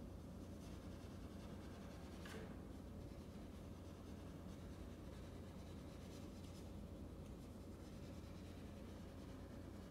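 Faint, pitchless scratching and rubbing of a bow drawn lightly across a bass viola da gamba, with a few slightly sharper scrapes about two seconds in and again around six seconds in, over a low steady hum.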